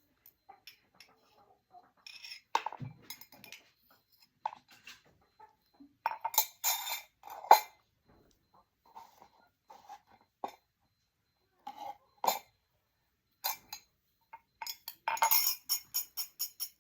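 Kitchen utensils and dishes clinking and knocking: scattered sharp clinks, the loudest a cluster about six to seven seconds in, then a fast, even run of clinks near the end.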